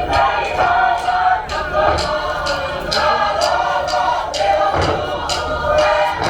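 A large group of voices singing together in harmony, in a Pacific Islands choral performance, with sharp percussive hits marking a beat throughout.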